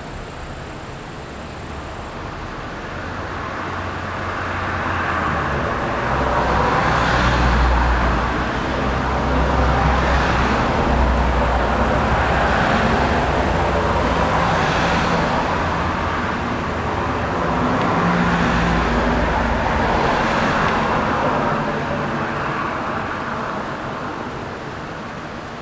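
A motor vehicle running close by, its engine hum and tyre noise swelling for several seconds and easing off again near the end.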